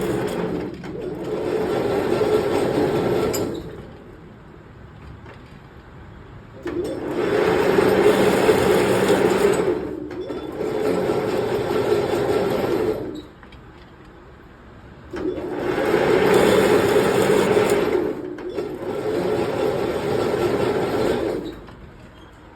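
A machine running in three long bursts of several seconds each, each with a brief dip partway through, with quieter gaps between.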